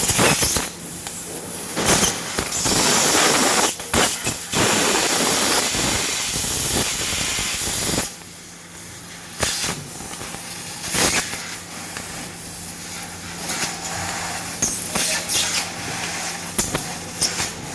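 CNC fiber laser cutter cutting sheet metal: a steady hiss of assist gas with sharp crackling clicks. It is louder for the first half and drops to a quieter hiss after about eight seconds.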